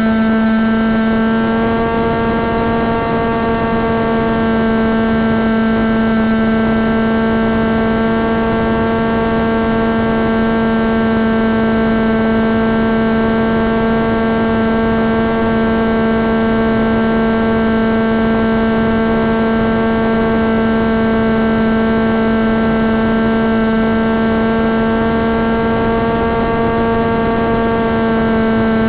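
Brushless electric motor of a Wing Wing Z-84 flying wing spinning its propeller at a constant speed, a steady whine with many overtones, run to check the propeller's balance.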